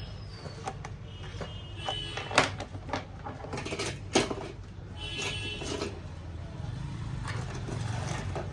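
Clicks and knocks of plastic as a laptop is handled and its battery latches are slid and the battery pulled out, loudest about two and a half and four seconds in, over a steady low hum.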